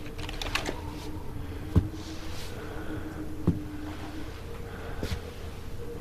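Three heavy thumps about a second and a half apart over a low steady hum.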